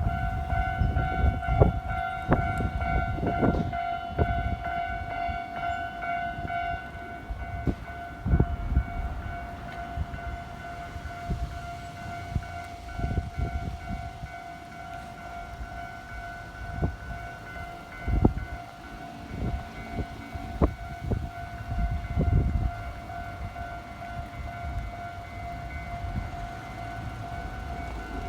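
Japanese railway level-crossing warning bell starting up and ringing steadily with a repeating high electronic clang. Under it, a train passing with low rumbling and irregular heavy thumps, strongest in the first third and again toward two-thirds through.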